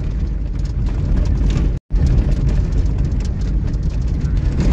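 Vehicle driving along a road: a steady low rumble of engine and road noise, with a brief total dropout just under two seconds in.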